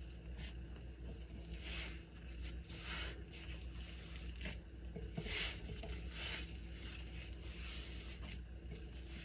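Hands rolling and pressing soft sourdough dough into a log on a floured countertop: irregular soft squishing and rubbing scrapes of dough and skin against the counter.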